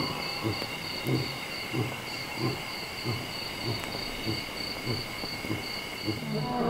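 Lion finishing a roaring bout with a long series of short, deep grunts, about one every half-second or so, slowly fading; a new roar begins right at the end. Insects chirr steadily and high throughout.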